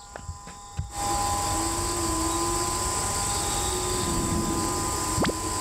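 North Korean loudspeaker noise broadcast across the border, a loud steady drone of several held tones that sets in suddenly about a second in. A quick sweep in pitch cuts through it near the end.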